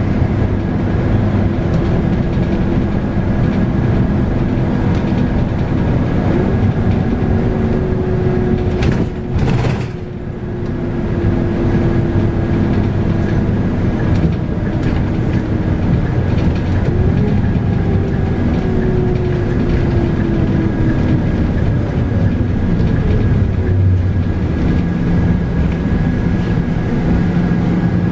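Scania K310UB bus's 8.9-litre five-cylinder diesel and ZF Ecomat six-speed automatic gearbox heard from on board while driving, with a whine that slides slowly in pitch. A brief rushing noise comes about nine seconds in, and the sound drops for a moment just after it.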